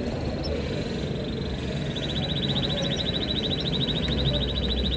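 Canary nestlings begging: a fast, even run of high peeps that starts about two seconds in and keeps going, over a steady low background rumble.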